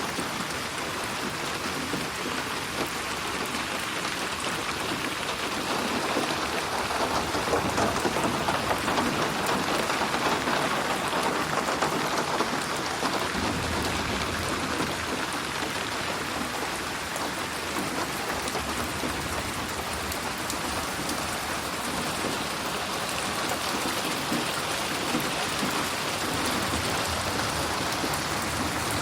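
Steady rain falling on a surface, a dense even patter of drops, processed as 8D audio that pans around the listener. It swells louder for several seconds in the first half, then settles back.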